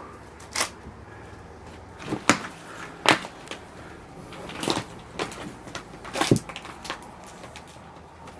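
Irregular knocks and crunches of debris being stepped on and shifted underfoot: about half a dozen sharp cracks, a second or so apart, with smaller clicks between them.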